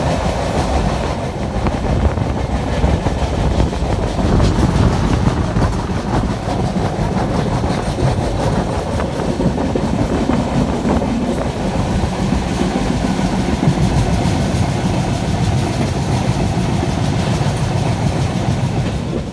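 Konkan Railway passenger train running at speed, heard from aboard: a steady loud rumble of wheels on the rails with some clickety-clack.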